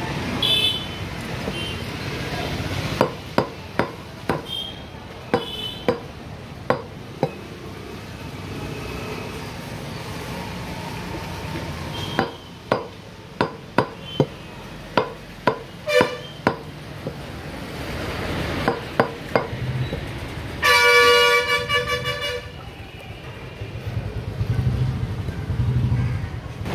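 Butcher's cleaver chopping goat trotters on a wooden block: a run of about eight sharp chops, a pause, then about nine more and two after. Near the end a vehicle horn honks loudly for about two seconds.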